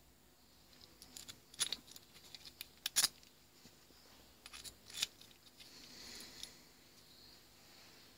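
Light metallic clicks and scrapes of a homemade chip pick, made from a self-tapping screw, clearing compressed chips out of a blind tapped hole in a steel arbor, with a few sharper ticks of metal on metal, loudest about three seconds in.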